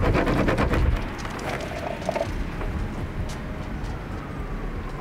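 Breaded zucchini deep-frying in a pot of hot oil: a steady sizzle with crackling pops. Wind buffets the microphone for the first second.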